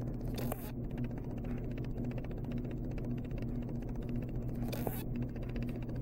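Steady low hum, broken twice by a brief scrape: once about half a second in and again about five seconds in.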